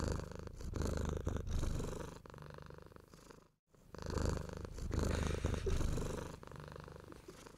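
Low, rhythmic purring that swells and fades in two long breaths, with a brief break about halfway through.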